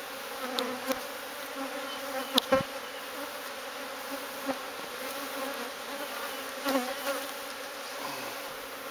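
Honeybee colony buzzing steadily around an open cutout, with a few short clicks and knocks.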